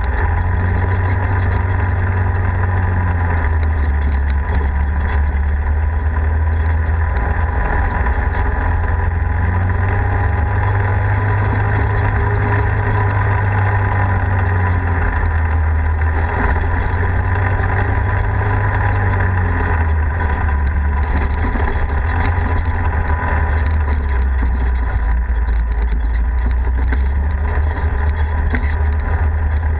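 Polaris RZR 4 side-by-side's engine running steadily while driving on a dirt trail, its low drone rising and falling in pitch a few times as the throttle changes.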